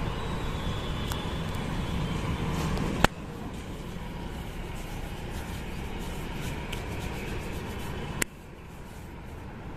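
Steady outdoor urban background noise, mostly a low rumble with some hiss. Two sharp clicks come about three and eight seconds in, and the level drops a step after each.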